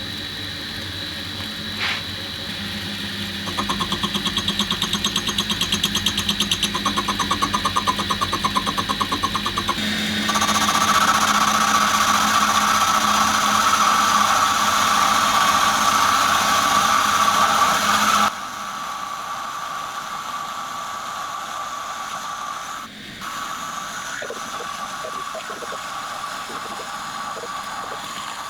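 Metal lathe running with a boring bar cutting inside a steel holder: first a pulsing cut, then a louder steady cut with a high ringing tone, which stops abruptly after about 18 seconds, leaving a quieter machine running.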